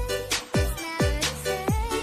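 Background music with a steady beat, a kick drum hitting about twice a second under sustained chords and a wavering melody line.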